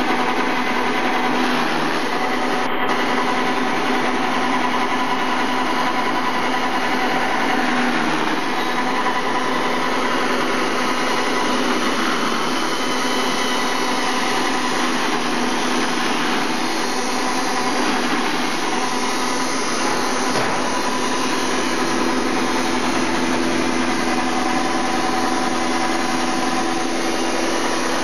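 Small chaff cutter running steadily, chopping fresh green grass fed through its chute: a constant mechanical hum with several held tones over a rough cutting noise.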